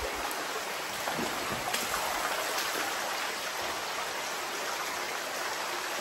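Cave waterfall running strongly, a steady rush of splashing water.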